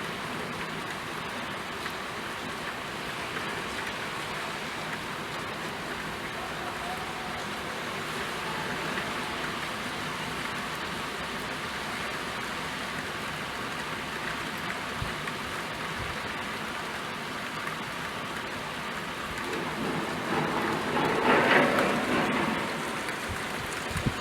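Steady rain falling as an even hiss, swelling louder for a couple of seconds near the end.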